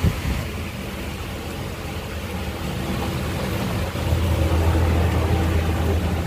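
A nearby engine running steadily with a low hum, getting louder about four seconds in, over the hiss of kebabs frying in a large pan of oil.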